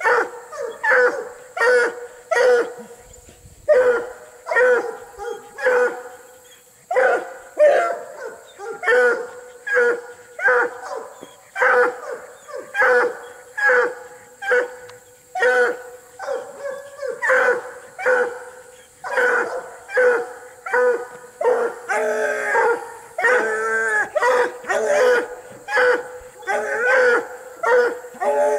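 Treeing Walker coonhounds barking hard and repeatedly at a caged raccoon, about one and a half barks a second, breaking into a few longer drawn-out howls about three quarters of the way through. This is hound baying at cornered quarry.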